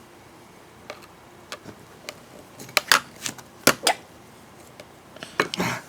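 Irregular light clicks and knocks, about ten in all, bunched in the middle and again near the end: a screwdriver, screws and laptop parts being handled on a table.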